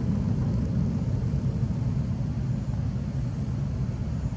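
Boeing C-17 Globemaster III on final approach, its four Pratt & Whitney F117 turbofans at approach power making a steady low rumble.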